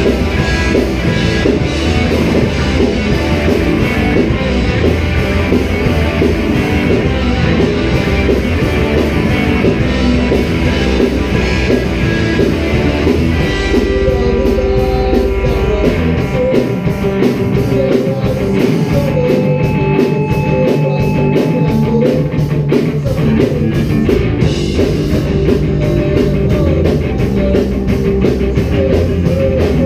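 A rock band playing live in a rehearsal room: electric guitars, electric bass and drum kit, loud and continuous. A few seconds past the middle the lowest notes drop out briefly, then the bass comes back in.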